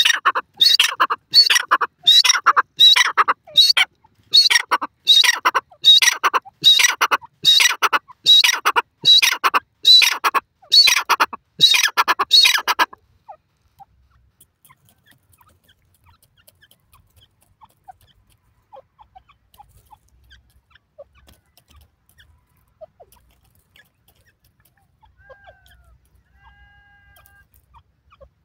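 Grey francolin (teetar) calling: a loud series of shrill notes repeated about once a second for roughly thirteen seconds, then it stops. After that there are only faint scattered ticks.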